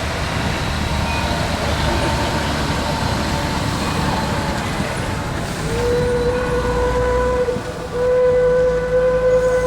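A low rumble, then from about six seconds in a train whistle blows one long steady note, broken briefly once or twice.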